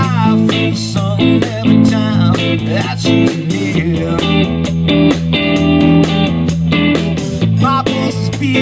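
Live blues-funk band playing: electric guitar over bass guitar and drums. The bass drops to a lower note for a few seconds in the middle.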